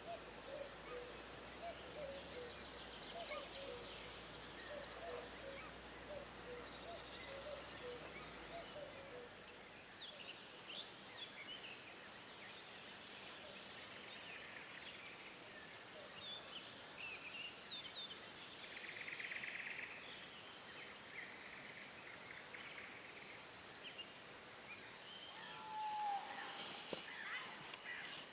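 Birds calling and singing in the open air: many short chirps and whistles, with a low repeated call in the first several seconds and a clear whistled note near the end, over a faint steady background.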